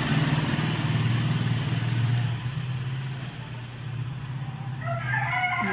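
A motor vehicle engine idles with a steady low hum, and a rooster crows near the end.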